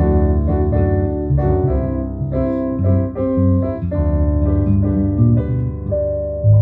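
Piano playing an instrumental passage: repeated chords over low bass notes, a few chords a second.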